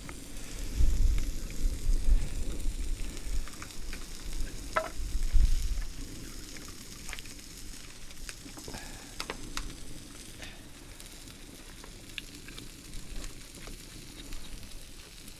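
Vegetables sizzling on a hot griddle over a campfire, with scattered sharp pops and crackles. A low buffeting rumble, like wind on the microphone, is the loudest sound during roughly the first half.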